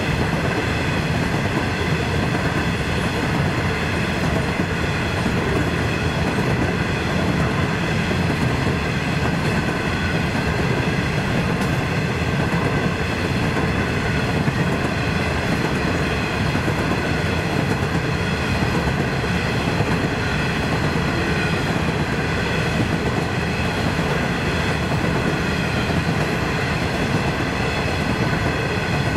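Coal hopper wagons rolling steadily past a level crossing, steel wheels running on the rails. Over it, the crossing's Safetran Type 3 electronic bell keeps ringing, heard as a steady high-pitched ringing.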